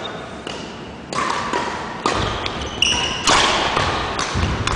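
Badminton rally: a string of sharp racket hits on the shuttlecock and footfalls on a wooden court, with brief high sneaker squeaks, ringing in a large hall.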